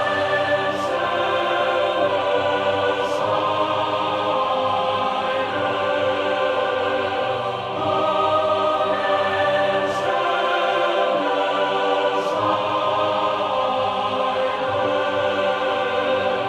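Background music: a slow passage of sustained, choir-like chords that change every couple of seconds, with no singing.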